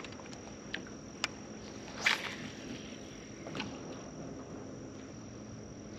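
Light clicks and knocks of rod, reel and kayak handling while a hooked white bass is reeled in, the loudest knock about two seconds in. Under them runs a steady high-pitched whine and faint hiss.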